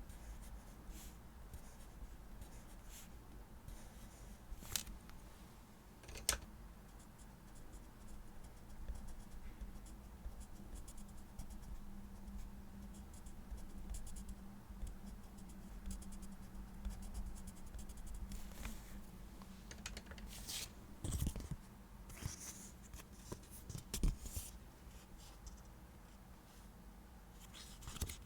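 Close-up stationery handling on a desk: light scratching and rustling of paper, with several sharp clicks and taps scattered through.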